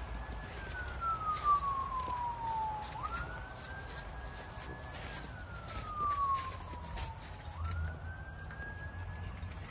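Emergency vehicle siren wailing in slow cycles about every four and a half seconds: each quickly rises to a high pitch, holds, then slowly falls again.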